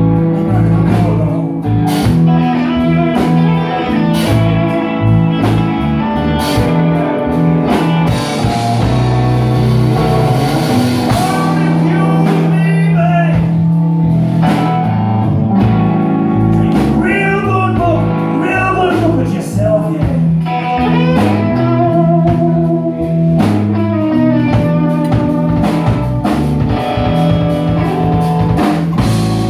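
Live blues band playing: electric guitar over a walking bass line and a steady drum beat, with bent guitar notes.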